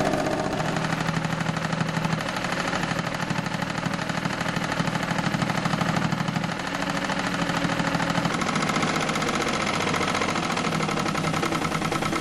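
Sewing machine running fast and steadily, its needle stroking in a rapid even rhythm, the motor's hum shifting in pitch a few times.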